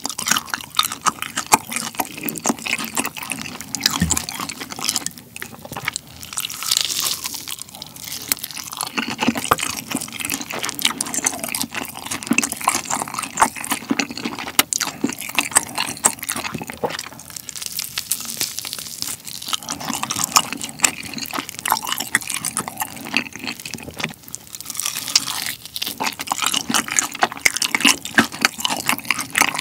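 Close-miked eating of a sauce-glazed Korean fried chicken drumstick, taken in small nibbling bites: a continuous run of wet, sticky chewing clicks and light crunches of the fried coating, easing briefly a few times.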